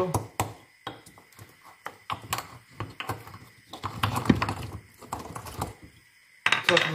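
Wooden pestle pounding in a small mortar, crushing green cardamom pods and a piece of cinnamon: a run of irregular knocks.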